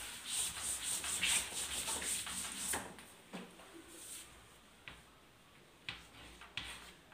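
Chalkboard being wiped with a cloth duster in quick back-and-forth rubbing strokes for about three seconds. A few light taps and scrapes of chalk on the board follow.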